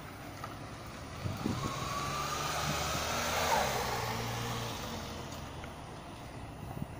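A motor vehicle passing by: its engine grows louder, peaks midway and fades away.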